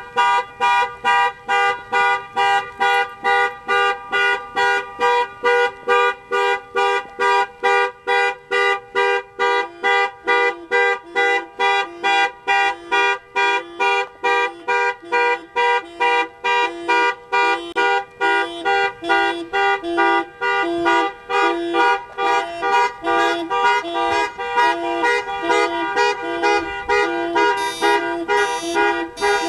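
Car horns sounding in a panic-alarm pattern: steady, rapid honks about two a second that start abruptly, set off by a remote sending the cars' shared panic code. About nine seconds in, a second, lower-pitched horn joins, pulsing slightly out of step with the first.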